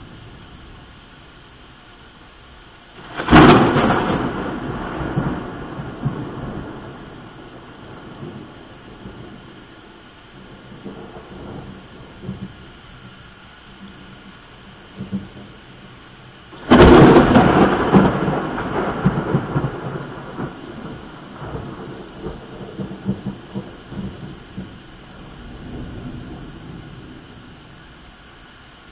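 Thunderstorm: steady heavy rain, with two thunderclaps about thirteen seconds apart, a few seconds in and just past the middle. Each starts with a sudden sharp crack and rumbles away over several seconds.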